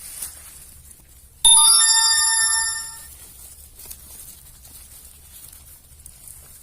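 A short electronic chime of several steady tones sounding together, starting suddenly about a second and a half in and stopping about a second and a half later, like a phone ringtone or notification.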